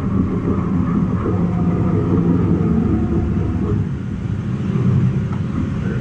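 Caterpillar bulldozer running steadily under load, heard from inside the cab as it back-drags dirt with its blade.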